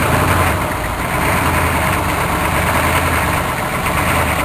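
An engine idling steadily close by, a low even drone with no change in speed.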